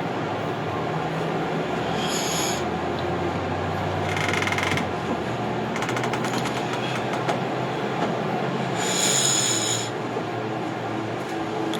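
Steady rumbling running noise with some rattling, broken by brief high-pitched squeals about two seconds in, about four seconds in, and loudest about nine seconds in.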